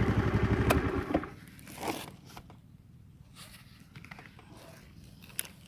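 A small engine running with an even pulsing beat, cut off about a second in. It is followed by faint rustling and crunching and a few sharp clicks.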